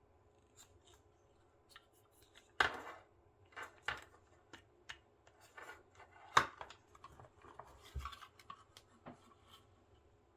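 Handling of the party flash's plastic parts and circuit board: irregular clicks, taps and rubbing, with two sharper knocks about two and a half and six and a half seconds in.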